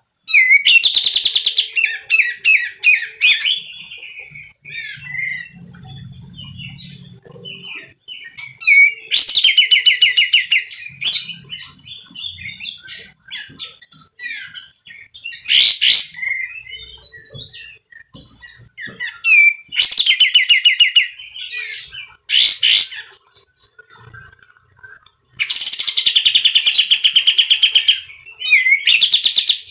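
Olive-winged bulbul (kapas tembak) singing loud, harsh phrases of rapid chattering notes in about five bursts, with softer single calls between them.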